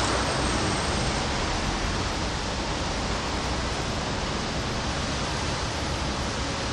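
Steady rainfall, an even hiss with no distinct drops or pauses.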